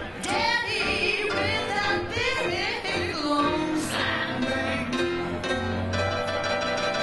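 A woman singing with wide vibrato and sliding swoops in pitch, accompanying herself on a grand piano.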